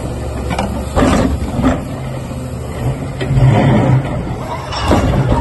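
Hydraulic eccentric ripper (Xcentric Ripper XR22) on a tracked excavator, its tooth vibrating into rock over the steady drone of the machine. Rock cracks and crunches sharply several times, about a second in and again near the end.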